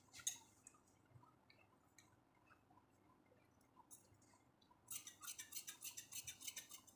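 Scissors cutting through folded cloth: a snip or two just after the start, then a quick run of short, crisp snips from about five seconds in as the blades work along a slanted cut.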